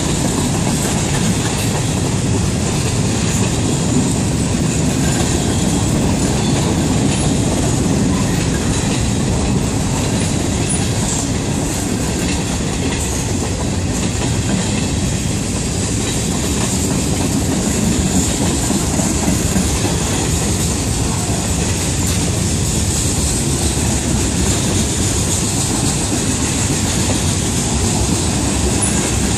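Freight train cars rolling steadily past a grade crossing at close range: a continuous rumble and clatter of steel wheels on the rails.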